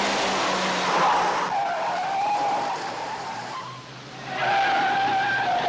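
Car tyres squealing during a car chase, in two long squeals: the first for about three seconds, the second starting about four and a half seconds in.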